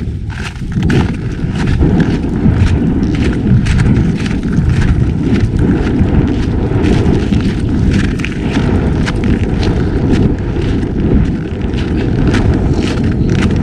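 Wind rumbling on the microphone, with irregular crunching footsteps in snow.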